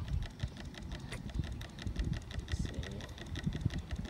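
A small machine running steadily, with a rapid run of clicks over a low rumble.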